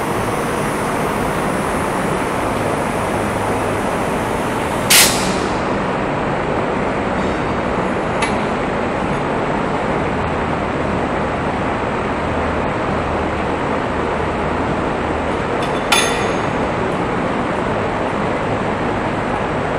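Steady rushing workshop noise, broken by two sharp knocks about five and sixteen seconds in, as 1-inch steel wire rope is worked by hand for a Flemish eye splice.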